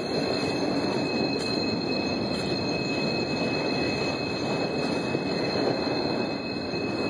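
Freight train cars passing at close range, a steady loud rolling noise of wheels on rail with a constant high-pitched screech of wheel squeal over it.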